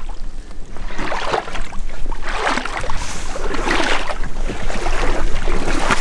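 A person wading through shallow water and stepping up onto the bank through dry grass: sloshing, rustling steps about once a second.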